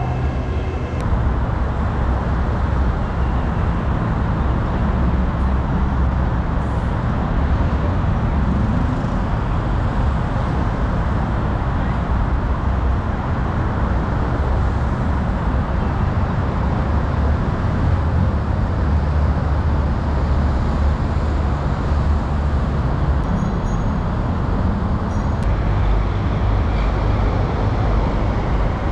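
Steady road traffic: cars and other vehicles running on a busy multi-lane road. In the first second a commuter train's steady hum is heard, then it cuts off.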